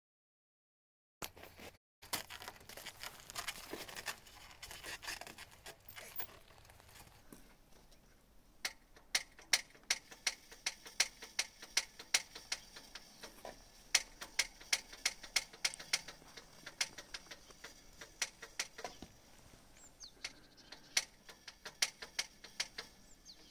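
Hand fuel-priming pump on the Saurer Berna truck's diesel engine being worked by hand to prime the fuel system before a cold start. A few seconds of rustling, then a long run of light clicks, about two a second.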